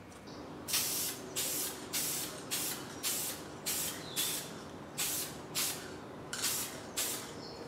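Aerosol spray paint can hissing in short, rapid bursts, about two a second, as the hull of a model boat is sprayed with coats of hull paint.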